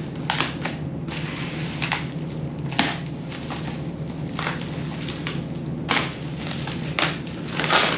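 Plastic bubble wrap crinkling and rustling as it is handled and pulled open by hand, with a sharp crackle or snap every second or two, over a steady low hum.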